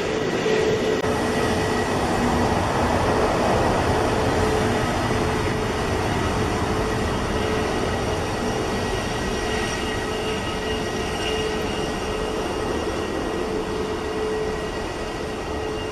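Airbus A321 jet engines running at taxi power: a steady turbine whine over a broad rumble, swelling a few seconds in and then slowly easing as the airliner turns away.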